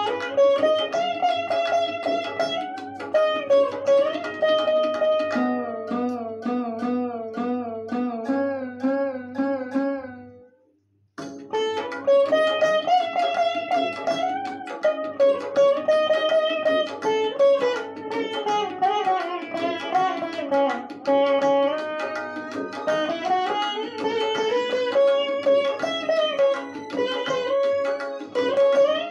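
Solo veena playing: plucked notes joined by smooth pitch slides and wavering ornaments over a steady low drone. About ten seconds in the sound dies away to silence for under a second, then the playing resumes.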